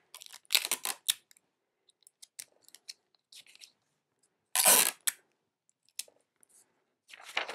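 Clear sticky tape pulled off a desk tape dispenser and torn off against its cutter in a quick run of short rasps, then quiet handling of paper being taped down, with one short, louder rustle about five seconds in.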